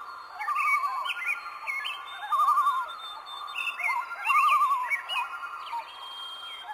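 Birds singing and calling: a short warbled trill repeated about every two seconds, with quick, sharp rising chirps from other birds in between.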